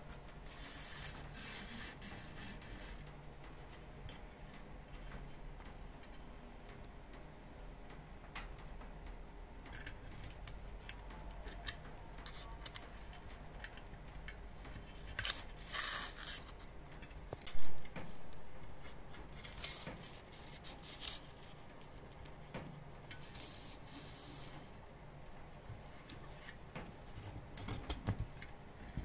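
Irregular scraping and rubbing of hand work on the pump's parts, with scattered small clicks and one sharp, loud knock a little past halfway.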